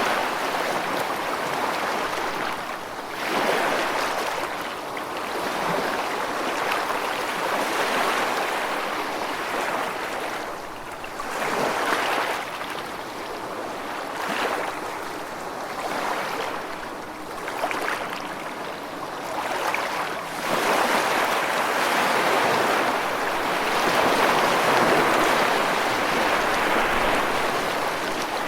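Gentle waves lapping on a sandy beach, a steady wash of surf that swells and eases every few seconds.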